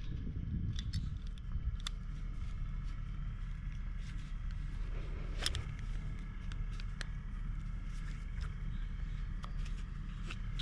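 A steady low rumble of wind on the microphone, with small clicks and rustles from a strap and its metal buckle being pulled through and fastened around a gate and fence post. A sharper click comes about halfway through.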